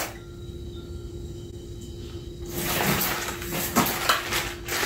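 Plastic packaging being handled and torn open by hand: quiet at first, then crinkling and rustling from about halfway in, with a few sharp crackles near the end.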